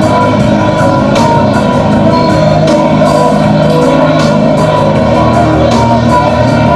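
Loud music: held chords with percussive hits recurring every second or so.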